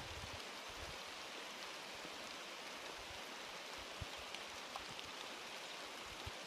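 Rain falling steadily on tea bushes and surrounding vegetation: an even hiss with a few faint ticks of drops.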